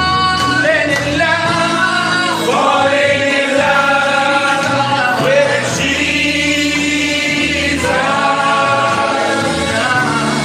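A women's worship group singing a gospel song, a lead singer on a microphone over the group, with long held notes.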